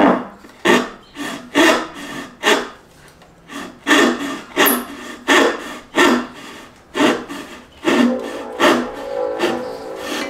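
Brass-backed dovetail saw cutting white pine by hand: a steady run of rasping push strokes, about two a second.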